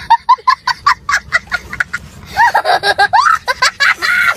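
A small child laughing hard: a fast run of short, high-pitched cackling bursts for about two seconds, then longer rising-and-falling laughs.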